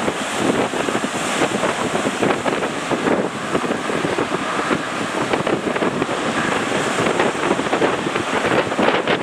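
Strong wind buffeting the microphone in an uneven, fluttering rush, over the wash of surf.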